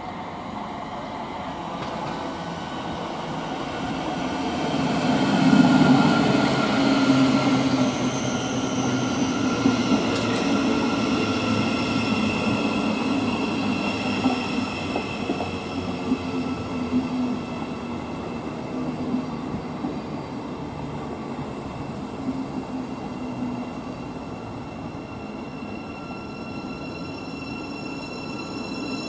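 Thameslink Class 700 Desiro City electric multiple units moving through the station: a continuous rumble of wheels on rail, loudest about six seconds in, with steady high whining tones over it.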